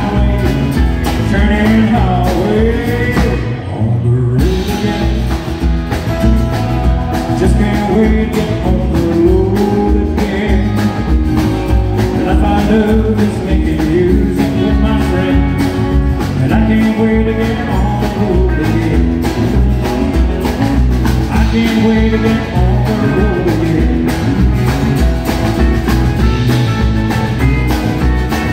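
Live country band playing: a male voice singing over acoustic and electric guitars, bass and drum kit keeping a steady beat, heard loud through the stage PA.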